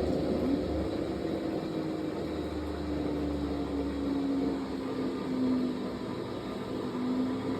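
Fisher & Paykel MW059NZ washing machine running a towels wash: a steady motor whine that rises quickly just after the start, then slides slowly lower, with a low rumble partway through.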